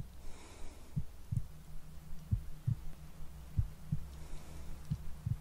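Slow heartbeat, paired lub-dub thumps about every 1.3 seconds, the second beat following the first by about a third of a second, over a steady low hum.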